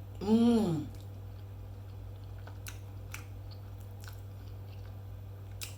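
A person eating: a hummed "mmm" of enjoyment, then scattered sharp mouth clicks and smacks of chewing. A steady low electrical hum runs underneath.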